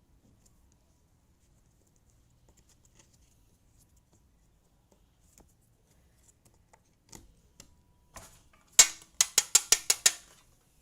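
Jigsaw puzzle pieces being handled: faint scattered ticks, then near the end a quick run of about eight sharp clicks and clatters in a second and a half.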